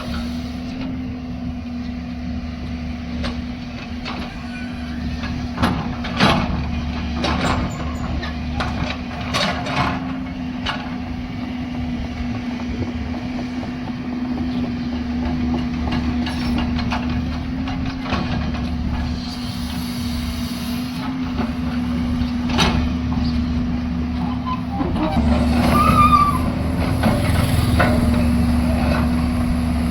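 Heavy diesel engine of a JCB machine running steadily, with scattered sharp clanks and knocks, and the engine working harder for a few seconds near the end.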